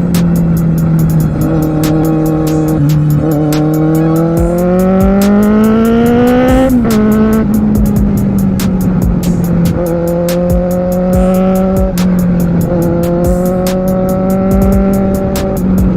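Kawasaki Z750R inline-four engine heard from on board under way: the revs climb steadily, drop sharply about seven seconds in at a gear change, then hold near a steady cruise with small throttle changes. Music with a regular beat plays along with it.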